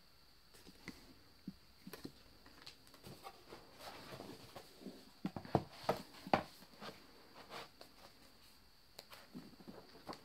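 Paper and card being handled, as an album's photobook and inserts are leafed through: light rustling with scattered taps and clicks, busiest and loudest about halfway through.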